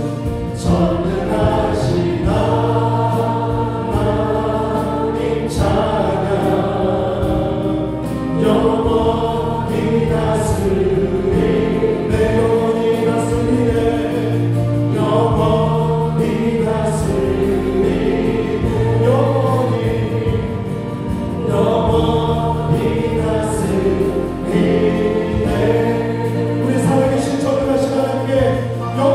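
Voices singing a Korean worship song together, backed by a live praise band: a Yamaha Montage 8 keyboard and a second keyboard, bass guitar and drums with cymbals.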